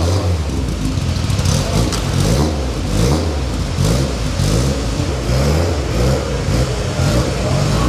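Track-built 1982 VW Golf GTI's engine being revved in repeated blips, its pitch rising and falling about once a second, echoing in a large hall.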